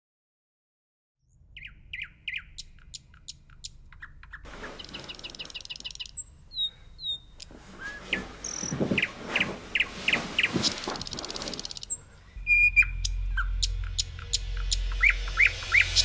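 Small songbird chirping in quick runs of short, falling notes and trills, growing busier as it goes, after about a second of silence. About twelve seconds in, a low rumble starts up under the chirping.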